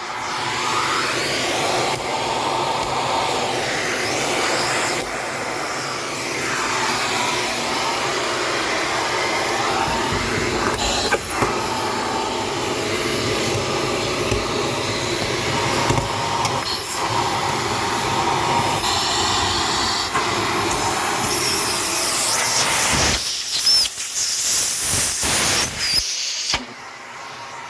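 Shark vacuum cleaner running steadily, sucking through its crevice tool. The pitch of the suction rises and falls as the nozzle moves over and against surfaces, with a few clicks of the tool knocking. The noise drops briefly near the end.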